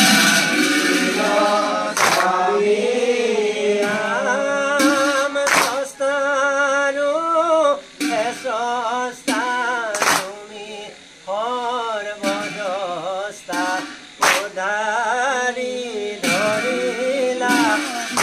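Assamese nam-prasanga devotional singing: a male voice sings a long, ornamented line with wavering, bending pitch and short breaks between phrases. Sharp percussive strikes come every couple of seconds.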